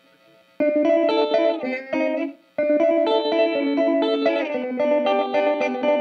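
Electric guitar, a 1967 Fender Coronado II, played through the Old Blood Noise Endeavors Visitor parallel modulation pedal into a Strymon Iridium amp simulator. The playing starts about half a second in, breaks off briefly around two and a half seconds, and picks up again with a run of notes and chords.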